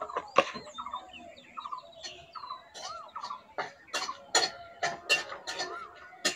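Metal spatula scraping and knocking against a dry metal kadai as it stirs whole spices being dry-roasted: dried red chillies, cumin and coriander seeds. The sharp scrapes and clinks come in quick strokes, about two or three a second, starting about halfway in.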